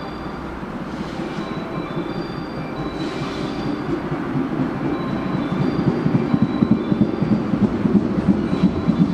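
A JR West 221 series electric train pulling in toward the platform, its wheels rumbling and clattering on the rails and growing steadily louder as it nears.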